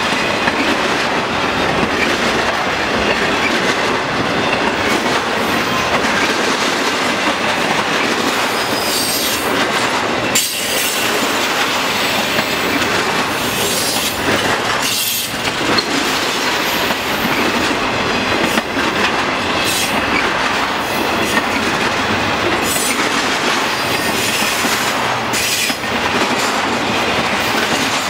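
Cars of a double-stack intermodal container train rolling past at speed: a steady, loud rumble and rattle of steel wheels on the rails.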